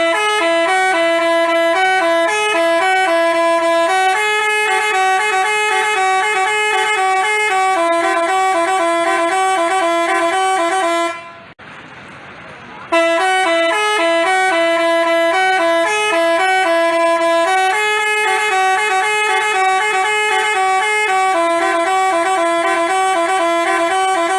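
Telolet basuri bus horn playing a tune of quick alternating horn notes. The same tune of about eleven seconds plays twice, with a short pause between.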